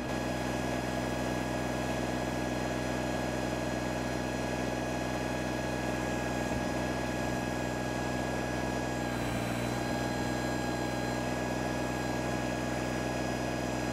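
Kubota BX sub-compact tractor's small three-cylinder diesel engine running steadily while the backhoe digs, with a slight change in the engine note about nine seconds in.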